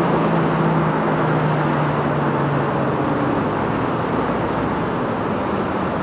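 Cars creeping past in a drive-thru lane, engines running with a steady low hum that fades about halfway through, over a steady wash of traffic noise.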